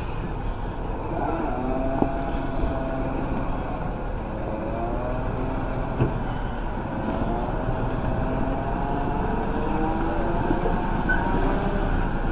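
Heavy vehicle engine running steadily under load, its pitch rising and falling as the revs waver, with a couple of short knocks.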